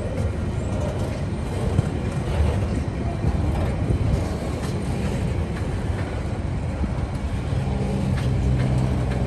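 Container flat wagons of a freight train rolling past: a steady rumble of steel wheels on rail, with occasional clicks.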